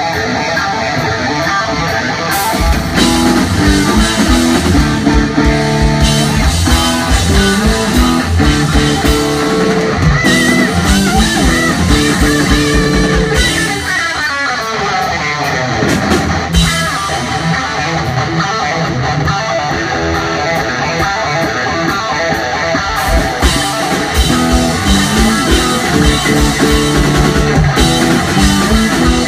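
Live instrumental rock trio playing loudly: electric guitar, electric bass and drum kit. The guitar opens alone, and the bass and drums come in about two and a half seconds in; around the middle the drums drop out briefly under a falling pitch sweep, then the full band comes back.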